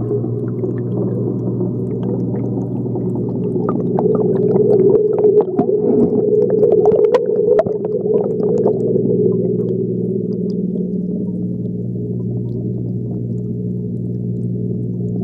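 Muffled underwater sound picked up through a waterproof phone case submerged in an aquarium: a steady low hum with several fixed tones. From about four to eight seconds in it grows louder with a run of clicks and knocks as the case is pushed down among the aquarium gravel.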